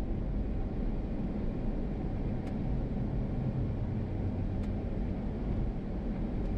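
Toyota HiAce camper van driving along: a steady low rumble of engine and road noise.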